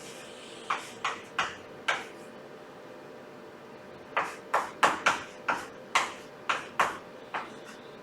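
Sharp, quick taps of writing on a hard surface, a few in the first two seconds, then a run of about ten close together from about four seconds in, over a faint steady hum.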